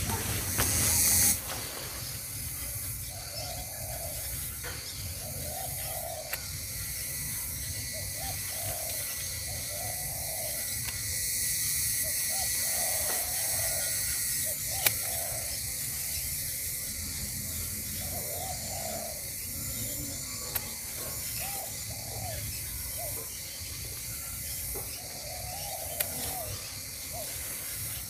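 Garden scissors snipping amaranth stems, with a sharp click now and then, over a steady high hiss.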